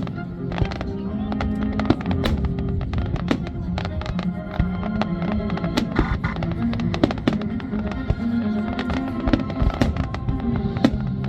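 Fireworks display: many sharp bangs and crackles in quick succession over steady music.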